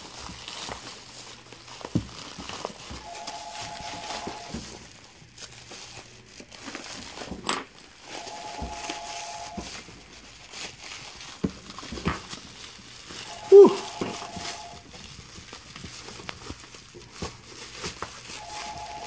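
Clear plastic stretch wrap crinkling and crackling as it is pulled and torn off by hand, with one brief louder sound about two-thirds through. A faint steady beep of about a second and a half repeats roughly every five seconds behind it.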